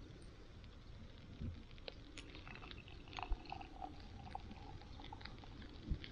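A drink poured from an aluminium can into a glass, a thin steady trickle for about two seconds in the middle. Scattered small clicks come through.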